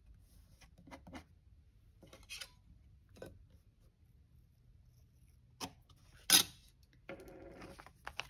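Paper craft handling: washi tape being pulled and pressed along a planner page, giving soft rubs and rustles, then a single sharp snap a little past the middle, the loudest sound, and near the end about a second of crinkly rustling as a plastic-backed sticker sheet is picked up and handled.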